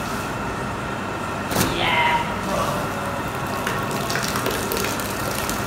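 Steady rushing of water running from a hose onto a wet stone floor, with a single sharp knock about a second and a half in.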